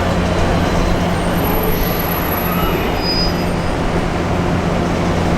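Electric train running by, a loud steady rumble with a constant low hum.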